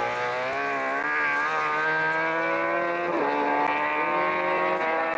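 Rally car engine running hard under acceleration, its pitch climbing steadily and dropping sharply at the very start and again about three seconds in as gears are changed.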